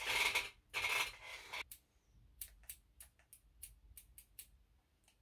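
Hair rustling twice as a comb is worked through a lock, then about nine quick snips of non-professional scissors cutting hair.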